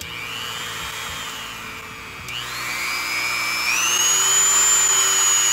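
Dremel 3000 rotary tool running free with a sanding drum fitted, its high whine stepping up in pitch and loudness twice, about two and four seconds in, as its speed is turned up.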